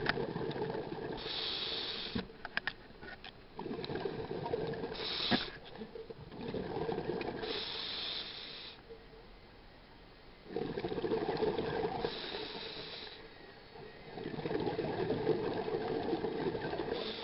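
Scuba diver breathing through a regulator underwater: a hiss and a rush of exhaled bubbles, repeating in a slow, regular cycle about every three to four seconds.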